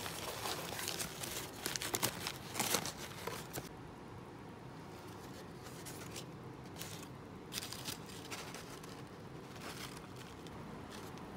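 Thin paper wrapper of a pressed pu-erh tea cake crinkling as it is handled and opened inside its cardboard box. The crackling is dense for the first three seconds or so, then comes as a few short rustles.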